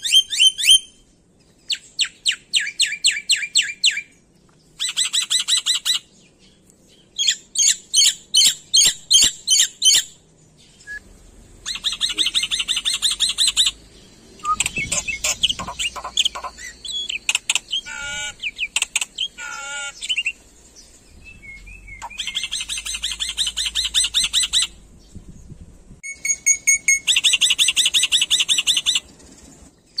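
Black-winged myna singing: loud bursts of rapid, repeated chattering notes about two seconds long, broken by short pauses, with a more varied stretch of rising and falling whistled notes in the middle.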